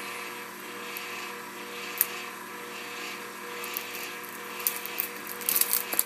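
Electric power wire stripper's motor running with a steady hum. A sharp click comes about two seconds in, and a flurry of small clicks and rattles from the wire being handled comes near the end.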